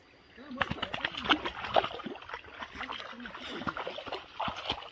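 Hunting dogs baying and yelping in quick, uneven calls, mixed with water splashing. It starts about half a second in.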